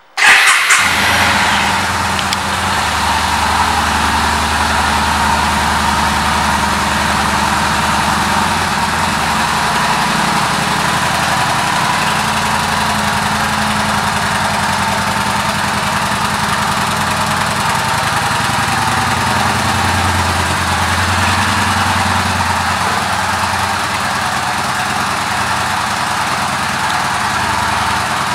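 2015 Yamaha Bolt 950's air-cooled V-twin engine starting: it catches loudly about half a second in and settles into a steady idle.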